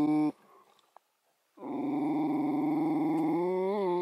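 Dog growling at a porcupine up a nearby tree: one long growl cuts off just after the start, then after a second's pause another long growl begins and wavers toward the end.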